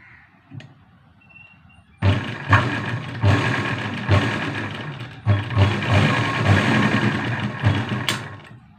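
Sewing machine running fast and stitching a fall onto a saree's border. It starts about two seconds in and stops just after eight seconds.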